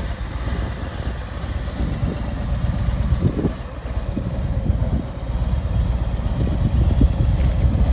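Harley-Davidson Road King Special's Milwaukee-Eight 114 V-twin engine idling.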